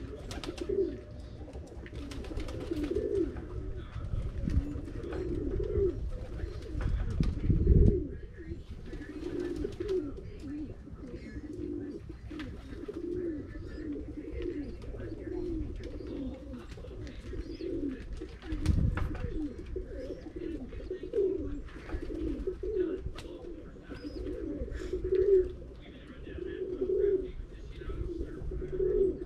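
Pigeons cooing continuously, many overlapping low warbling coos repeating throughout. Two brief low rumbles break in, about a quarter of the way through and again about two-thirds through.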